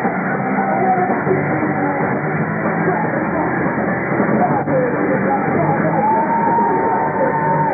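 Live rock band playing loud and steady, with distorted electric guitar, sounding dull and muffled with no treble. A high note is held for over a second near the end.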